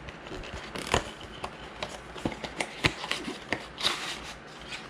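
Packaging being handled and opened by hand: scattered light clicks and taps, with a short rustle about four seconds in.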